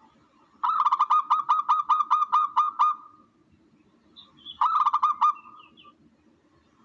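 A bird call: a quick run of about a dozen hooked, pitched notes, about five a second, then a shorter run of about five notes around the middle. It is likely a recorded call played back as a hunting lure.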